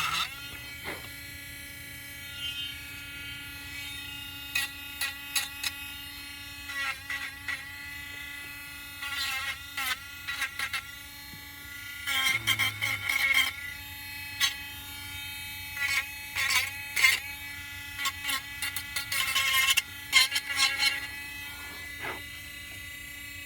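Irregular short scraping strokes of hand sanding, taking the burrs off a cut-out piece, over a steady electrical hum.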